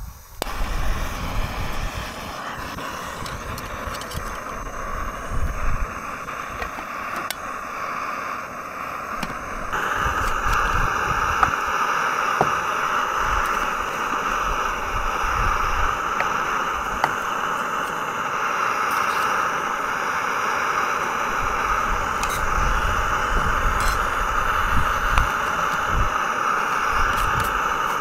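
Firemaple canister gas stove burner hissing steadily, turned up or lit to full about ten seconds in, when it becomes louder. Gusting wind buffets the microphone underneath, with a few small handling clicks.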